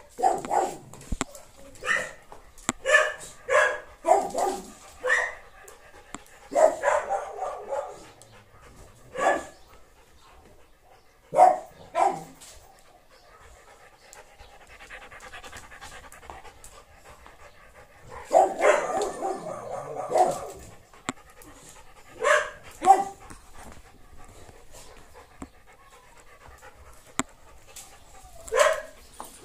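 A dog giving short whines and yelps in clusters, with quiet gaps between them and a longer run of calls about two-thirds of the way through.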